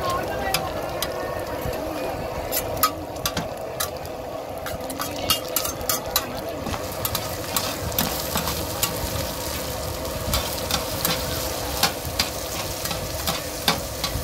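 Eggs sizzling in oil on a giant flat street-food pan, with sharp clicks and scrapes of two metal spatulas against the pan as the eggs are chopped and turned. The spatula clicks come more often in the second half, about one or two a second.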